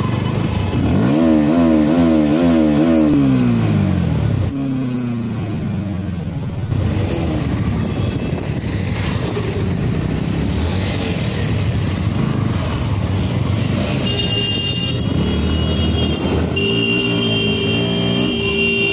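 Motorcycle engine running at low road speed in traffic. A warbling tone rises and falls several times about a second in, and a steady high tone comes in near the end.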